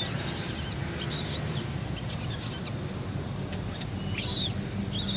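Baby macaque giving a series of short, high-pitched wavering squeals, about five in all, over a steady low background rumble.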